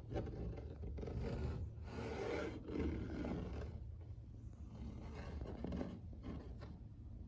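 A house cat yowling, a loud rough cry from about a second in to nearly four seconds, then quieter, scattered sounds. It is crying to wake its owners.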